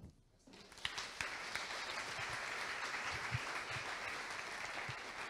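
Audience applauding, the clapping starting about a second in after a brief quiet and holding steady, easing slightly near the end.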